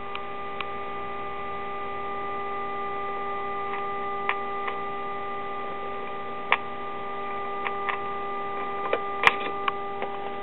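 A 1936 RCA Victor 5T1 tube radio's speaker sounds a steady tone with several overtones: the signal generator's modulated 460 kc signal coming through while the second IF transformer is tuned for maximum output. The tone holds level because the transformer is already peaked. Scattered light clicks come from the alignment tool, the sharpest a little before the end.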